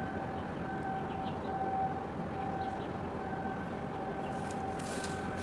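Steady mechanical drone with a constant high whine over a low rumble, and a brief hiss near the end.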